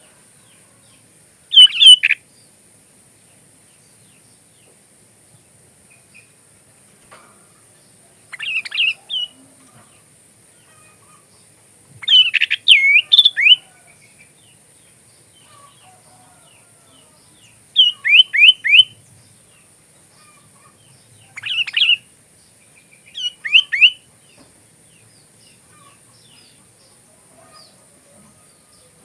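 Sooty-headed bulbul (kutilang) singing, its song filled with Oriental magpie-robin (kacer) phrases learned in training. It sings six short, loud bursts of quick down-slurred whistles, each under two seconds, with pauses of a few seconds between them.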